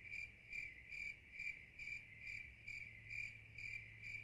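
Crickets chirping faintly in an even, unbroken rhythm, roughly two to three chirps a second.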